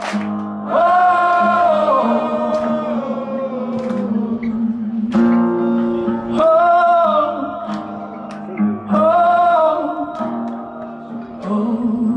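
Live rock music: a male lead singer sings slow, long-held phrases over guitar, with three sung lines separated by instrumental passages.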